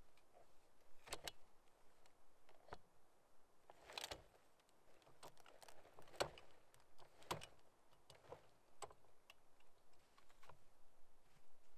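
Faint, irregular clicks and metallic rattles of a rooftop tent's aluminium ladder and folding frame as the tent is pulled open by its ladder, with a few sharper knocks, the loudest about six seconds in.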